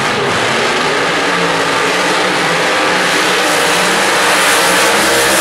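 Two drag-racing funny cars doing burnouts: their engines held at high revs with the rear tyres spinning on the track, a loud, steady, dense roar of engine and tyre noise.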